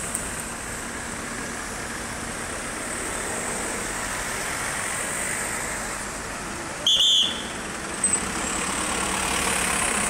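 Vans and minibuses driving past close by, with a steady mix of engine and tyre noise. About seven seconds in, a short, loud, shrill tone cuts through for about half a second.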